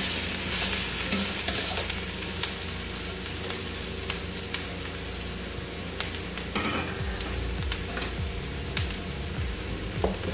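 Diced onion sizzling in hot oil in a wok, with a few light clicks and scrapes from a spatula stirring it. The onion is at the early sauté stage, being cooked until translucent.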